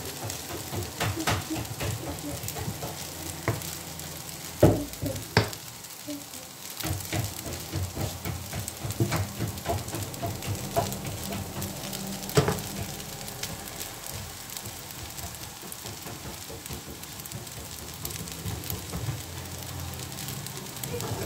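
Fusilli pasta with grated cheese sizzling in a nonstick frying pan while a slotted spatula stirs and tosses it, scraping and clicking against the pan, with a few louder knocks. The cheese is being stirred in to melt.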